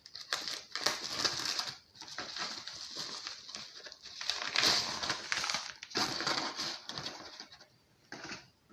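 Packaging rustling and crinkling in irregular bursts as a small radio transceiver is unwrapped by hand, dying down near the end.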